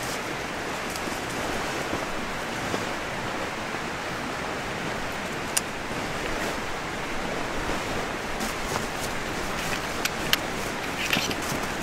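Steady rush of a mountain stream, with a sharp click about halfway through and a few more near the end.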